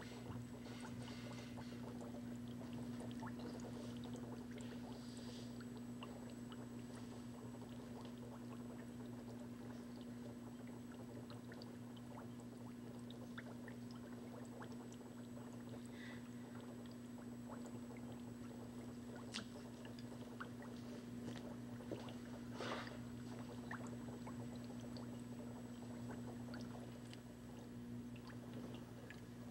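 Faint water sloshing and splashing in a dolphin's glass tank over a steady low hum, with a few soft splashes, the clearest about three quarters of the way through.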